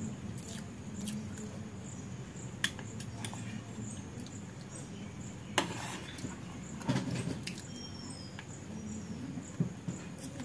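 Metal spoon clinking and scraping against a ceramic plate and a small steel bowl while eating upma, a few sharp clicks spread through, with soft chewing and mouth sounds in between.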